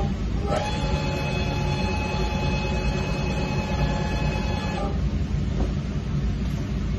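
Weiler E90 flatbed lathe running: a steady mechanical whine dips briefly about half a second in and cuts off near five seconds, over a constant low machine rumble.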